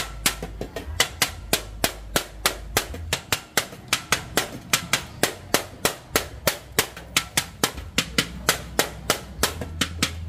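Metal spoon striking a large stainless steel mixing bowl in a quick, even rhythm of about four knocks a second while a spicy salad is tossed.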